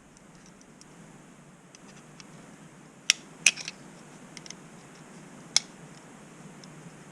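Small metal and plastic parts of an ATV starter motor clicking as they are handled and fitted together: light ticks throughout, two sharp clicks about three seconds in, and one more near five and a half seconds.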